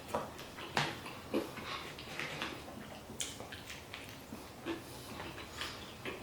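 Close-miked chewing and lip-smacking, with irregular short wet mouth clicks and smacks.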